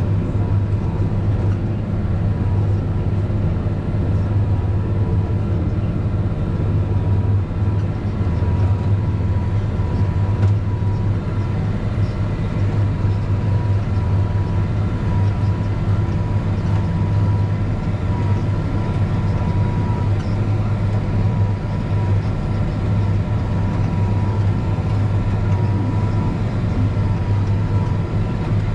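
Tractor engine running steadily under load from inside the cab, powering a Knight manure spreader that is slinging manure out the side. A thin steady whine sits over the low drone.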